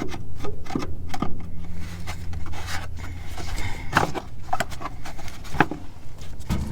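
Scattered knocks, clicks and scrapes of hands and parts being handled while working under a car, over a low steady hum that fades about three seconds in.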